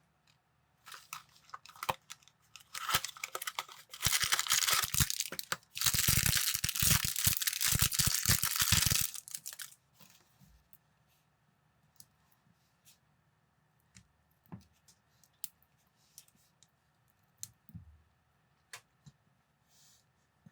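Thin plastic packaging rustling, crinkling and tearing for several seconds, loudest in the middle, as a parts bag is opened. Afterwards come a scatter of light clicks from small plastic building pieces.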